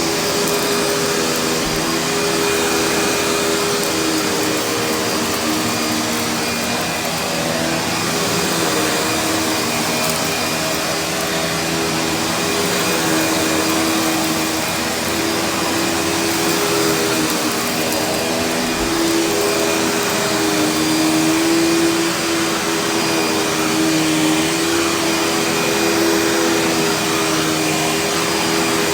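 Panasonic vacuum cleaner running steadily as it is pushed over carpet, its motor and brush roll giving a continuous hum whose pitch wavers slightly.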